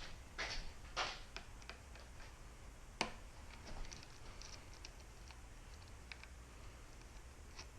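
Light clicks and ticks of hands working a bicycle brake caliper and its pad, probing the pad mount for adjustment. There are two short scrapes in the first second and one sharper click about three seconds in.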